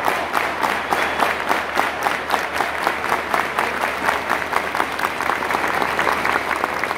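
Football stadium crowd applauding, with sharp hand claps close by at a quick, fairly even pace over the general clapping.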